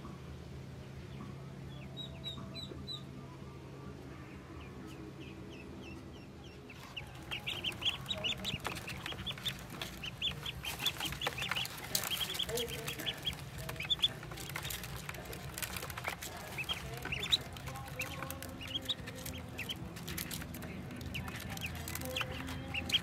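A few faint high peeps at first; then, about seven seconds in, a brood of young ducklings starts peeping constantly with short rising cheeps, mixed with many light clicks and taps of bills pecking at a feed dish and feet on a plastic crate.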